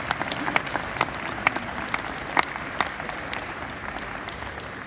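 Spectators applauding, a dense patter of hand claps that thins out and dies away toward the end.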